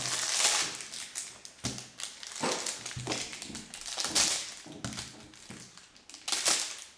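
Hockey card pack's wrapper crinkling as it is handled and torn open, with a few light taps of the cards against the table.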